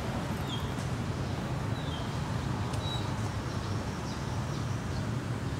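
Steady low traffic rumble with a few short, high bird chirps.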